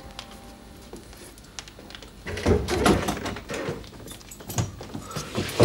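A door and its barred metal gate being handled: a few small clicks, then from about two seconds in a run of irregular knocks and rattles.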